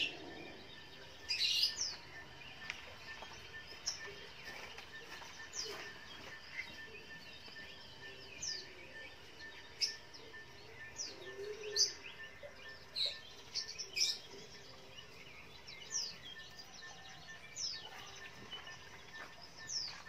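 Bird chirps: short, high calls that sweep downward, one every second or two.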